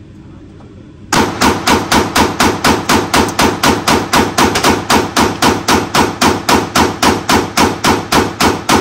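Customized 9mm Glock 43X pistol emptying a 33-round extended magazine in a mag dump: a rapid, steady string of shots at about four a second, starting about a second in, each report ringing off the walls of an indoor range.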